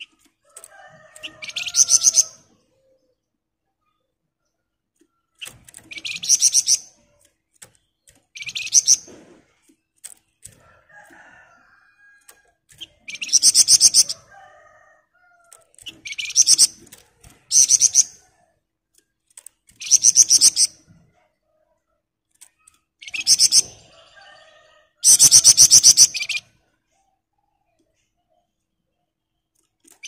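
Caged flamboyan songbird singing in repeated bursts of a rapid, high, dense rattling trill ('ngebren'), about nine bursts of roughly a second each with short pauses between, and faint softer chirps in the gaps.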